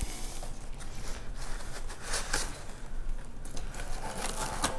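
Rustling, crinkling and light clicks of packaging as printer parts are pulled out and handled.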